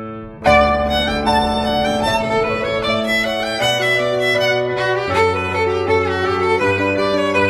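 Violin playing a slow, sustained melody, coming in strongly about half a second in over low held accompaniment notes.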